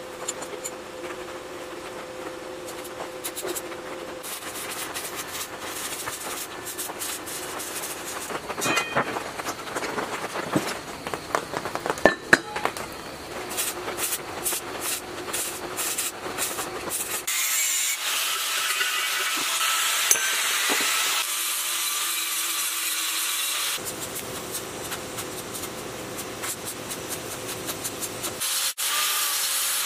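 Stick (arc) welding on sheet steel: the electrode arc gives a steady crackling hiss in two long runs, starting about halfway in and again near the end. Before it, irregular metal clinks and sharp taps come from handling the sheet-metal pieces.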